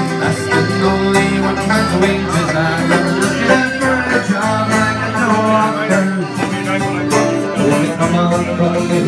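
Live Irish folk music in a crowded pub: plucked strings played to a steady rhythm, with a voice singing.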